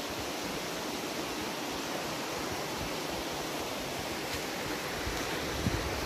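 Steady, even rushing noise with no distinct events, and a low rumble building near the end.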